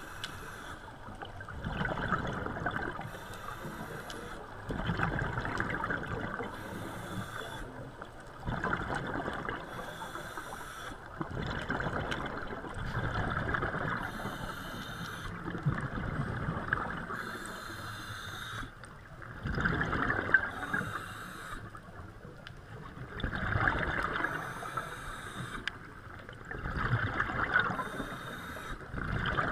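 Scuba diver breathing through a regulator underwater: a hiss on each inhale, then a louder gurgling burst of exhaled bubbles, repeating about every three to four seconds.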